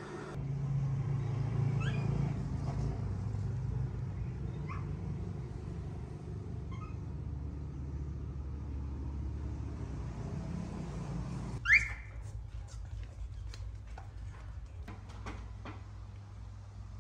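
Industrial sewing machine running steadily, a low hum that starts suddenly and stops suddenly after about eleven seconds. A sharp high squeak comes as it stops, followed by a few light clicks.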